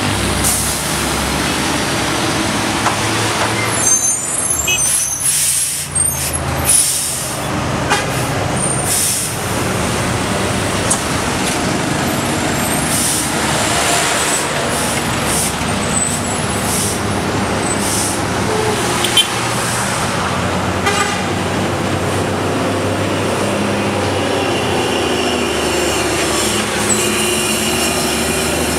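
Diesel engines of heavy trucks, among them a MAN TGS tractor unit, running loudly as the trucks pass close by one after another on a mountain road. Short sharp hisses and clicks come about four to nine seconds in.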